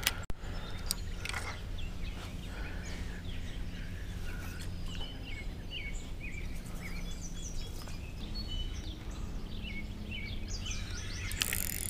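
Several birds singing and chirping over a steady low background hum. A few sharp clicks come in the first second and a half, and a hiss starts near the end.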